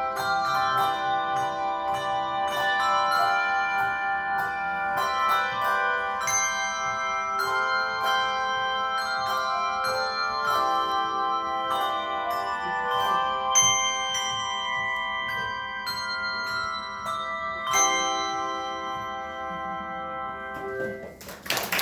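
A handbell choir playing a hymn: many bells struck together in chords, each tone ringing on after the strike. The music thins and fades toward a last chord near the end, and applause breaks out right at the close.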